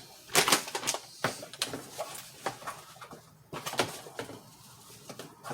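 Handling noise from a hand coffee grinder and its box: a series of light clicks and knocks with some rubbing, irregularly spaced.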